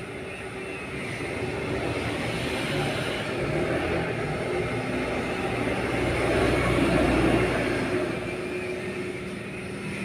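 Engine noise of a passing vehicle, building gradually to its loudest about seven seconds in and then fading.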